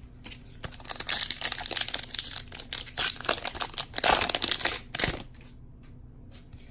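Foil trading-card pack wrapper being torn open and crinkled by hand, a dense crackling that starts about a second in and dies down after about five seconds.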